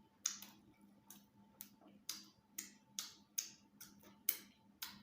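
Close-miked eating sounds: sharp, wet mouth smacks while chewing and licking food from the fingers, about two a second.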